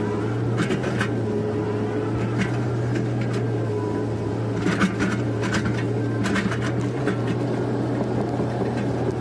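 Komatsu PC130F excavator's diesel engine running steadily under digging load, heard from inside the cab, with a number of short sharp knocks and clanks scattered over the steady hum.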